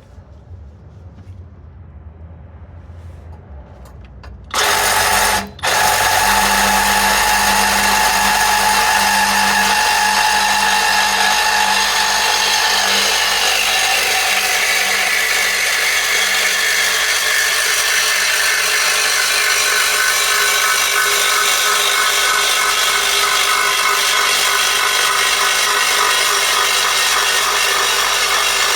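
Reciprocating saw with a bimetal carbide-tooth blade starting up about four and a half seconds in, stopping for a moment, then cutting steadily through a rusted steel exhaust pipe beside a seized flange.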